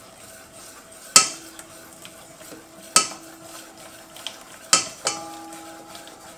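Stainless steel mixing bowl clanking as metal knocks against it while hot milk is whisked in: four sharp clanks a second or two apart, each ringing on briefly, with faint stirring between them.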